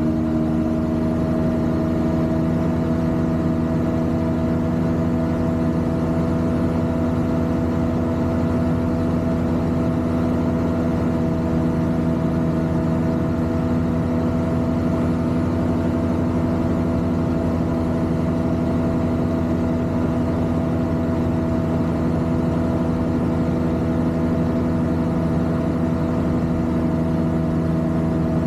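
Rotax 582 two-stroke twin-cylinder engine and propeller of a Fly Synthesis Storch ultralight running steadily at constant power in flight, heard from inside the cockpit as one even engine note.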